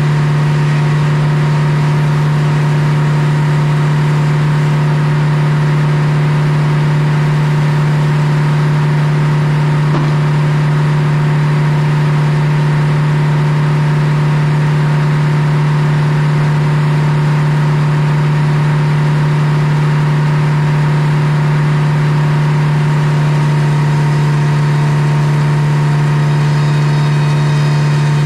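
Old belt-driven circular sawmill running at steady speed while the large circular blade saws a big poplar log into boards. A constant loud hum from the mill's power unit sits under a steady hiss of cutting.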